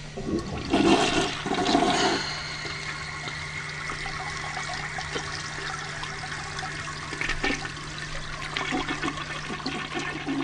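Toilet flushing: a loud rush of water for about two seconds, then a quieter steady rush of water as it runs on.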